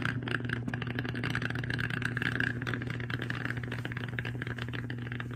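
Dry ice bubbling and churning in water, a steady rattling fizz over a continuous low hum.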